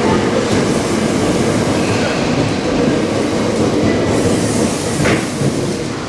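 Tokyo Metro 8000-series electric train running past close alongside the platform: a steady, loud rolling noise of wheels on rail.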